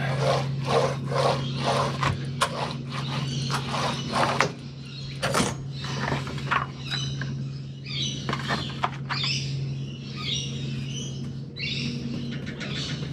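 Rhythmic scraping strokes of a hand tool working epoxy resin into fibreglass cloth, about three a second, stopping after a few seconds. Then birds chirping over a steady low hum.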